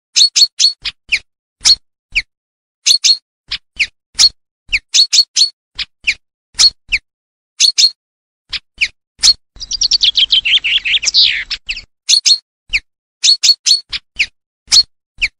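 Common chaffinch calling: short, sharp, high call notes repeated in quick pairs and triplets. Around the middle comes one falling trill lasting about two seconds.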